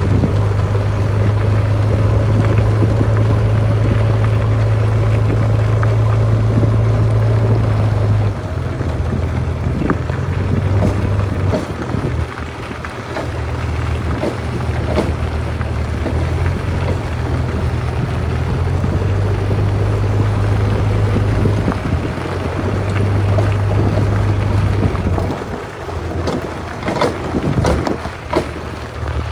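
Diesel engine of a backhoe loader running loudly at a steady pitch, its note shifting after about eight seconds as the machine works. Scattered knocks and clanks come near the end.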